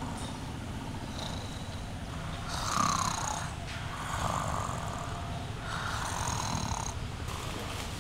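A sleeping person snoring, a run of drawn-out snores each about a second long.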